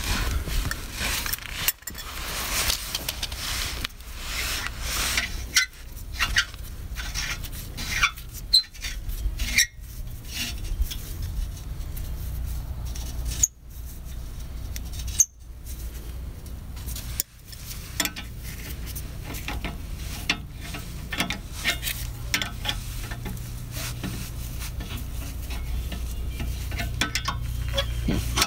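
A wrench and other hand tools clinking and scraping on steel exhaust hardware as a downpipe is bolted up under the car: many short, irregular metallic clicks over a low steady hum.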